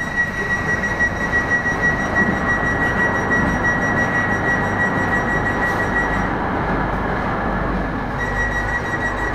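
Solo Ekspres train heard from inside the carriage as it pulls out: a steady running rumble with a thin high whine that drops out for about two seconds near the end.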